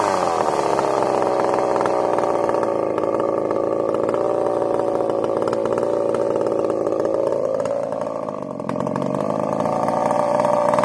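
Echo CS-590 two-stroke chainsaw running unloaded: the revs fall away at the start and settle into a steady run. A little under eight seconds in, the note sags and quietens briefly, then picks back up to a steady run.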